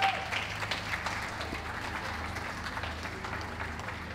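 Audience applauding at a dog show ring, loudest at the start and easing off slightly.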